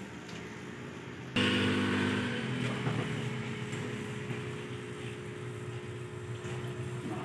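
A motor vehicle engine running at a steady pitch, which comes in suddenly about a second and a half in and slowly fades.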